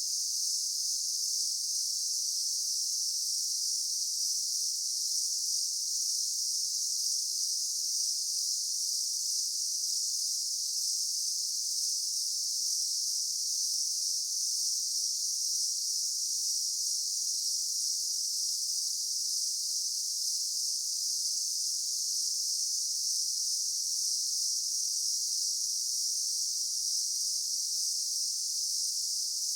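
Daytime insect chorus: a dense, steady, high-pitched buzzing of many insects that holds at an even level without a break.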